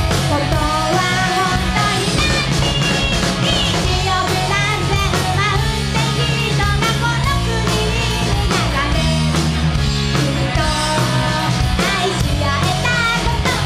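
Live rock band playing loudly: a woman singing lead over electric guitars, bass and drums.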